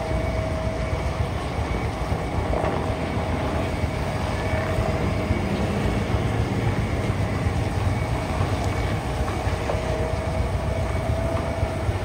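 Grove TM1500 truck crane's diesel engine running with a steady low rumble as the heavy crane rolls slowly, with a faint whine coming and going.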